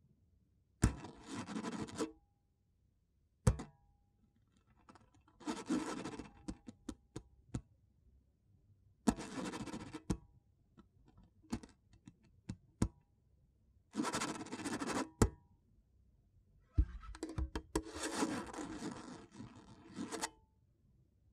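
An acoustic guitar scratched and rubbed by hand as a percussion instrument: a series of rough scraping strokes, each a second or two long, with pauses and sharp single knocks between them.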